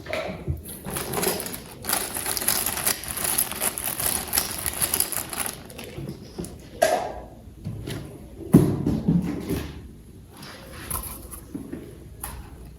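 Plastic toy parts and packaging being handled: a stretch of dense rustling and crackling, then scattered clicks and a heavier knock a little after halfway.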